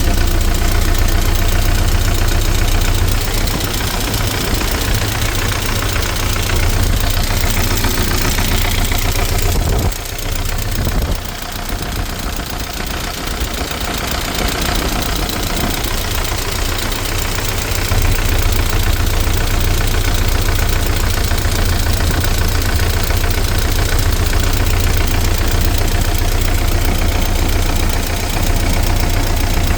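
ZMZ-409 four-cylinder petrol engine running with a fast, continuous knocking, which the owner puts down to the hydraulic valve lifters and the timing chain. The sound briefly gets quieter about a third of the way in and is a little louder from past the middle on.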